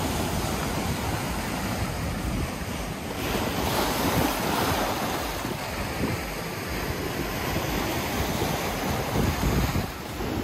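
Sea surf washing onto the beach, a steady roar of breaking waves that swells and eases, with wind buffeting the microphone.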